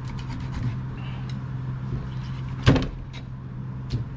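Kitchen knife clicking and knocking on a wooden cutting board while a rockfish is gutted, with one loud knock a little under three seconds in. A steady low hum runs underneath.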